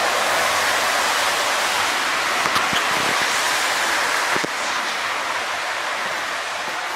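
Steady hiss of vehicle tyres on a wet road, easing a little past the midpoint.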